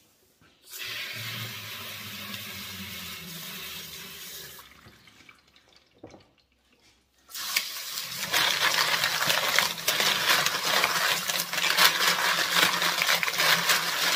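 Water running from a tap into a sink, on for a few seconds, off briefly, then on harder from about seven seconds in, as tumbled agates are rinsed of their borax wash.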